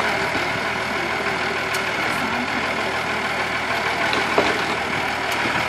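Farm tractor's engine running steadily at low speed.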